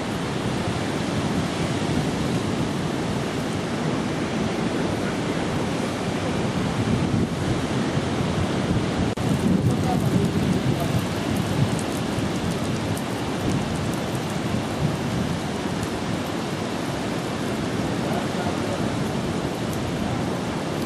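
Steady roar of sea surf and wind on the microphone, a little louder about halfway through.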